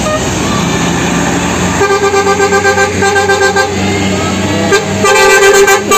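Coach bus multi-tone horn: first a rapid string of short staccato toots of a several-note chord, then after a pause one short blast and a long loud held chord. Beneath it runs a steady low bus-engine hum.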